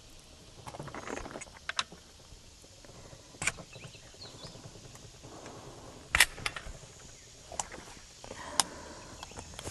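Seneca Dragon Claw .50 caliber PCP air rifle being cocked and loaded by hand: several sharp metallic clicks from its action, the loudest a quick double click about six seconds in.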